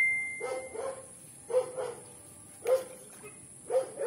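An animal calling over and over, about once a second, each call in two short parts. A metallic ring fades out at the start.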